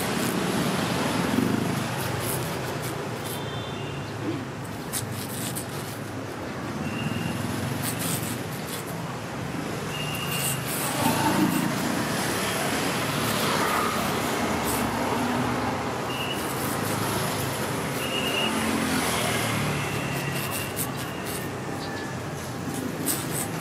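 Steady roadside traffic noise with scattered light clicks and a few short high squeaks.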